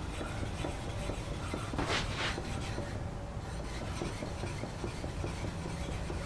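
A hand-held water stone rubbed back and forth across the bevel of a hewing hatchet: a steady wet scraping of stone on steel made of many short strokes, one of them louder about two seconds in. This is the bevel being polished on the coarser grit of a two-grit stone.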